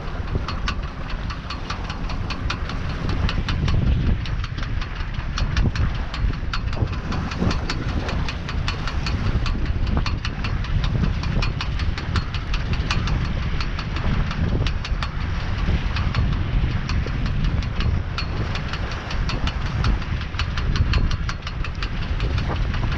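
Wind buffeting the microphone of a small sailboat under sail, a low, uneven rumble, over the rush of water along the hull, with a fast, uneven ticking rattle throughout.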